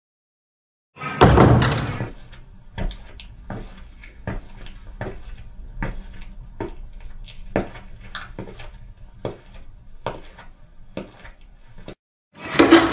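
A door with a chrome knob being opened, a loud knock and rattle of the latch and door. Then footsteps on a hard corridor floor, about one step every 0.7 seconds. Near the end, another doorknob is turned and its door opened.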